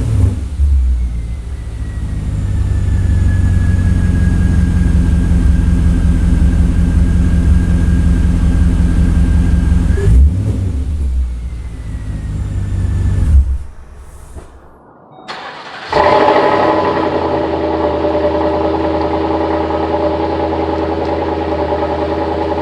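2010 Volvo S80's 4.4-litre V8 through a Becker aftermarket exhaust, idling with a deep steady rumble and one short blip of the throttle about ten seconds in. It dies away about thirteen seconds in. About sixteen seconds in it starts again and settles into a fast, steady idle.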